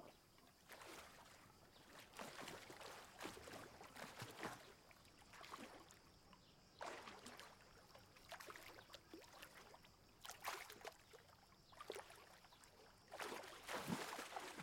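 A swimmer's strokes and kicks splashing in a swimming pool: faint, irregular splashes every second or so, growing louder near the end.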